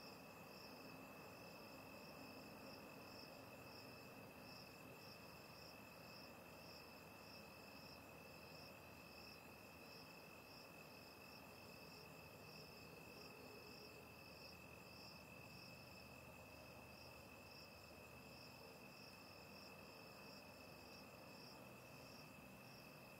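Faint insects calling at night: one steady, unbroken high trill with a second, higher chirp pulsing in a steady rhythm over it.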